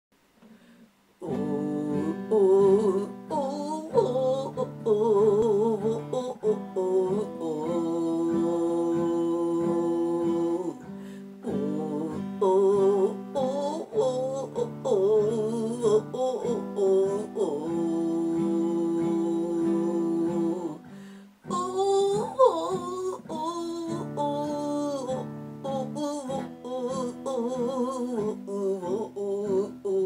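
A woman singing with wavering vibrato while strumming chords on a steel-string acoustic guitar, starting about a second in.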